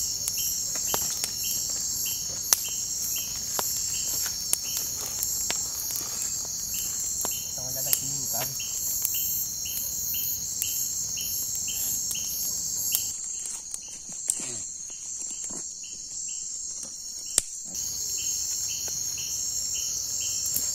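Night insect chorus: a steady high trilling with a cricket-like chirp repeating a little over twice a second, which thins out for a few seconds past the middle. Sharp scattered crackles come from a wood campfire burning damp firewood.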